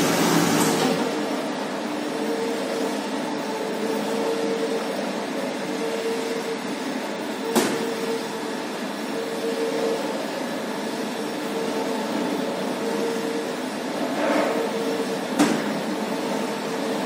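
A steam iron's hiss of steam cuts off just under a second in, leaving the steady hum of the steam ironing machine running. Two sharp clicks come midway and near the end.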